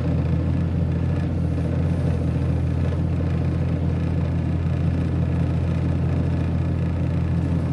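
An engine running steadily at a constant speed, an even low drone.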